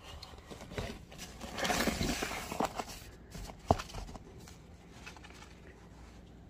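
Small plastic nursery pot scooped through loose potting mix with perlite in a plastic tub: a gritty scraping rustle about two seconds in, and a single sharp tap of the pot against the tub a little later, then fainter rustling.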